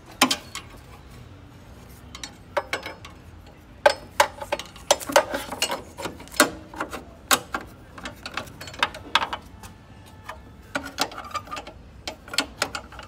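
Irregular sharp metallic clicks and clinks of hand tools working on an A/C refrigerant pipe fitting, coming in clusters with short pauses.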